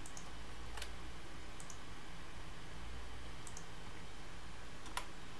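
Scattered clicks of a computer keyboard and mouse, about six in all, some in quick pairs, the sharpest near the end, over a low steady electrical hum.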